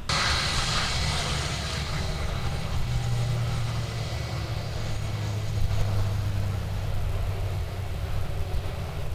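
Jet airliner's engines running as it moves along the runway: a steady low drone under a hiss that is strongest at the start and then fades.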